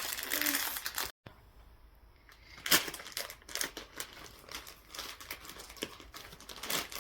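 Blind bag packaging being crinkled and torn open by hand: dense crinkling at first, then a sudden gap, then quieter scattered crackles with one sharp loud crackle a little under three seconds in.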